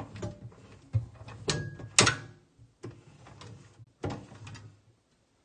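Wooden cabinet doors or drawers being handled: a series of knocks and clunks with a short squeak, the loudest a sharp knock about two seconds in and another clunk about four seconds in.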